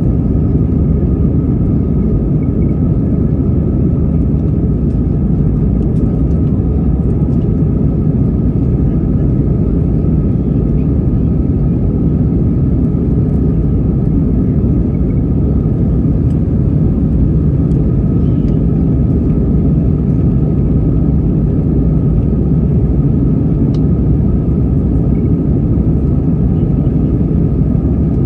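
Steady, even rumble inside the cabin of an Airbus A320-200 climbing after takeoff: engine and airflow noise heard from a window seat over the wing, with a few faint steady tones above it.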